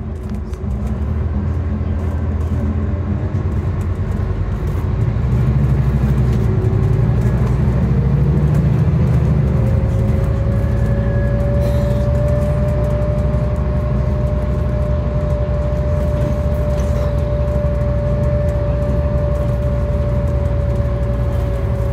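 Scania N250UD double-decker bus with a DC09 nine-litre five-cylinder diesel, heard from inside the passenger saloon while under way. The engine drone builds as the bus pulls along, and a whine rises in pitch over the first several seconds and then holds steady.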